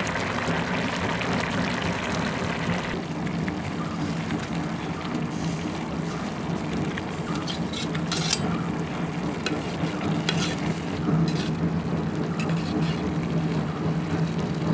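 Anchovy, coconut paste and green mango simmering down in an aluminium pot over a wood fire: steady sizzling and bubbling, with scattered sharp crackles from about five seconds in. Near the end, a metal spoon stirs the pot.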